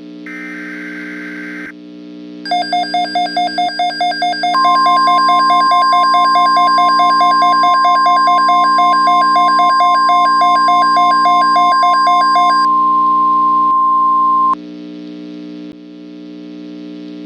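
Emergency alert broadcast tones. A short raspy burst of SAME digital header data ends near the start. About 2.5 s in, a pulsing alarm tone begins at about four pulses a second. About 4.5 s in, the steady NOAA Weather Radio 1050 Hz warning alarm tone joins it. The pulsing stops about 12.5 s in, and the steady tone cuts off abruptly about 14.5 s in, over a steady low hum.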